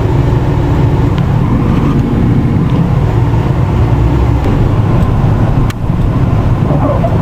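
Car cabin noise while driving: a steady low rumble of engine and tyres, with a brief click and drop in level about five and a half seconds in.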